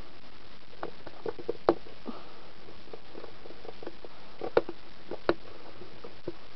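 Fingernails picking and scratching at a security sticker on a cardboard camera box as it is handled, giving scattered light taps and scratches. The sharpest come about a second and a half in and again around four and a half seconds.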